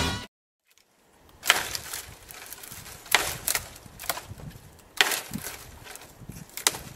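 A stick thrashing and raking the dry branches of a dead conifer: a run of sharp woody cracks, about six in all, with branch scraping and rustling between. This is raking a tree to mimic a bull elk rubbing its antlers.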